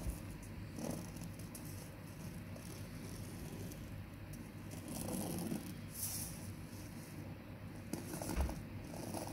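Faint scratching and rustling of a pencil tracing around a paper pattern on cloth, the paper shifting under the hand, with a soft bump about eight seconds in.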